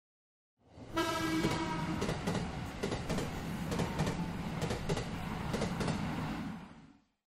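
Train passing: it fades in with a short horn blast about a second in, then wheels clatter rhythmically over the rail joints before it fades away near the end.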